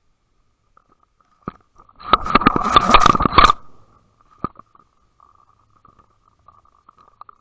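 Audio heard through an underwater camera housing towed on a trolling line: a faint steady whine with light ticking, then a loud burst of knocking and rushing noise about two seconds in, lasting about a second and a half. Single sharp knocks come just before and after it.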